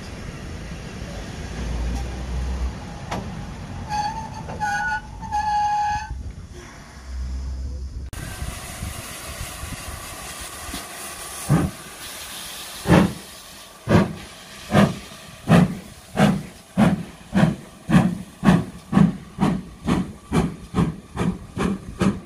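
Steam locomotive hissing, with a short whistle call about four seconds in. Later the locomotive pulls away, its exhaust beats coming faster and faster, from about one a second to about two a second.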